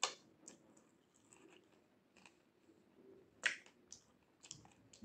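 Close-up eating sounds: faint chewing with scattered wet mouth clicks and smacks, and fingers picking through curry and rice. The sharpest click comes about three and a half seconds in.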